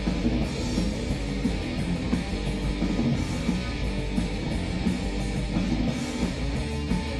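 Rock band playing live: electric guitars over a drum kit, an instrumental stretch with no singing.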